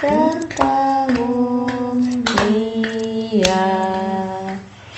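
Singing of a birthday song with no clear words, slow held notes that step down in pitch, stopping just before the end.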